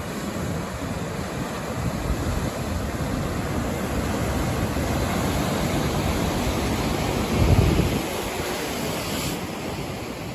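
Ocean surf: breaking waves and churning whitewater, a steady rush with wind on the microphone, swelling into a louder low surge about seven and a half seconds in.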